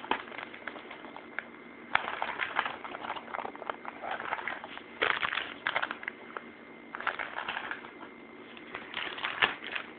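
Rustling, crackling handling noise close to the microphone in several short bursts, as small squishy toys and their packaging are picked up and turned over in the hands.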